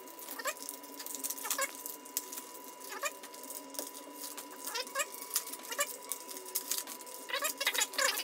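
Foil wrappers of Yu-Gi-Oh trading card booster packs being torn open and crinkled in the hands, several short rips one after another, coming thickest near the end.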